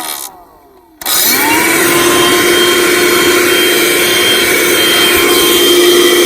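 Small 12-volt car vacuum cleaner's motor winding down and stopping, then switched back on about a second in, spinning up quickly to a steady loud whine with a rough, noisy fan sound, which the owner takes for a broken fan.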